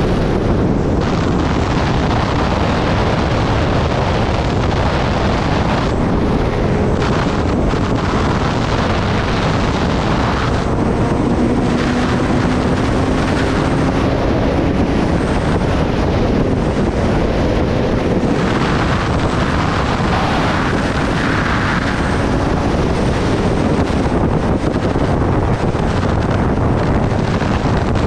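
Heavy wind rushing over the microphone of a sport motorcycle riding at road speed, with the engine faintly heard beneath it as a low steady tone.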